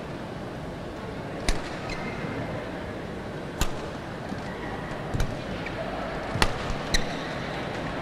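Badminton rally: rackets strike the shuttlecock five times with sharp cracks, the hits coming closer together toward the end, with a couple of brief shoe squeaks on the court over a steady arena hum.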